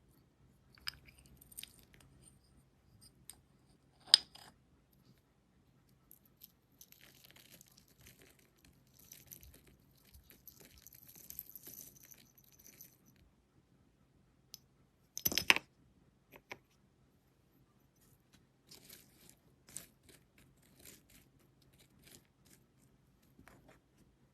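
Slime being squeezed and worked by hand, giving scattered small crackles and clicks, with a sharp pop about four seconds in and a louder short burst of pops about fifteen seconds in.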